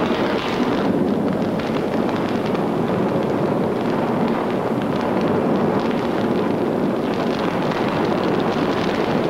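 A loud, steady rushing and rumbling noise with faint crackling running through it.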